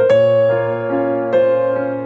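Slow electric piano music: sustained keyboard notes, a new note roughly every half second.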